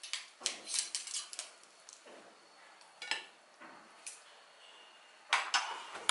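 Forks and knives clinking and scraping on ceramic plates as people eat, in irregular clusters of sharp clinks.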